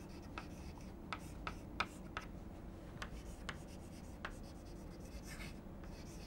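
Chalk writing on a chalkboard: irregular sharp taps as the chalk strikes the board, with a short scraping stroke a little after five seconds in.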